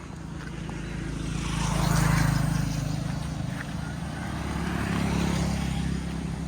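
Motor vehicles passing by, an engine hum with road noise that swells and fades twice, loudest about two seconds in and again about five seconds in.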